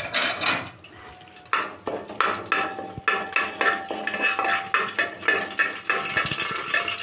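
Steel spoon scraping and clinking against the bottom and sides of an aluminium pressure cooker while stirring whole spices in ghee, a quick run of scrapes and knocks about three a second.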